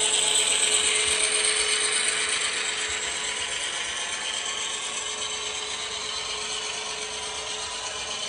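HO-scale model freight train rolling past: the ScaleTrains C44-9W locomotive's motor and gears whirring, then the freight cars' wheels rattling along the rails. The noise is loudest about a second in as the locomotive goes by and slowly fades as the cars pass.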